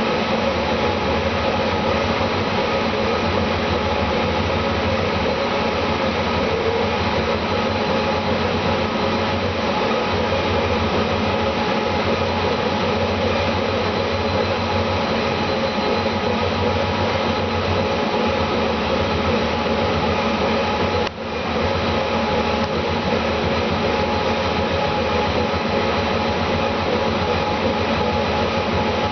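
Steady machine noise with a constant hum, dipping briefly about two-thirds of the way through.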